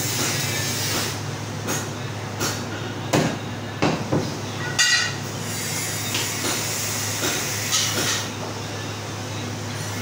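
Steel butcher's knife knocks and clinks against the wooden chopping block and the meat as a mutton leg is cut: scattered sharp taps, the loudest a ringing metal clink about five seconds in. A steady low hum runs underneath.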